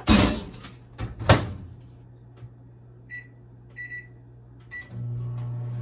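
Microwave oven being started: two clunks of the door, a few short keypad beeps, then the oven starts running with a steady low hum about five seconds in.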